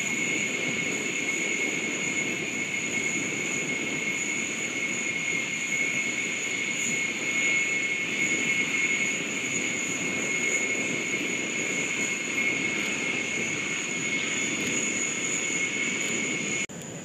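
Engines of two propeller aerobatic planes flying in formation overhead, a steady drone with a high whine, swelling slightly midway, then cutting off abruptly near the end.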